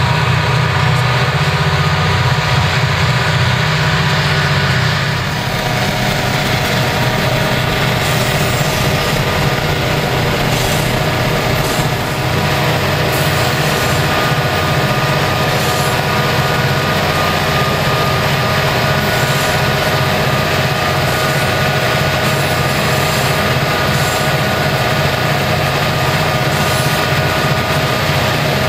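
EMD SD40-2 diesel-electric locomotive, with its 16-cylinder two-stroke 645 engine, running steadily under power as it pulls a freight train, with a steady whine through it. It is heard from a vehicle driving alongside.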